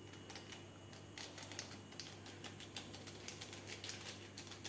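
Faint, irregular wet clicks and squelches of hands kneading and rubbing marinade into raw pork pieces, several small clicks a second.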